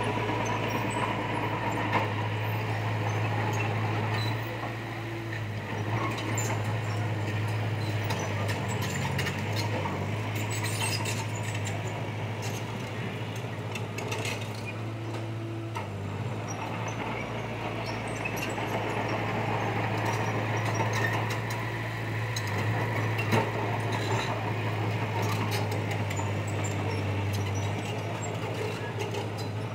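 Heavy diesel construction machinery running steadily with a low engine drone, with scattered metallic clinks and knocks over it.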